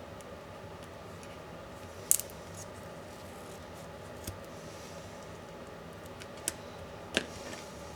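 Sharp clicks and snaps of small laptop parts being handled and pried apart during disassembly, four or five in all, the loudest about two seconds in and another near the end followed by a short scrape, over a steady low background hum.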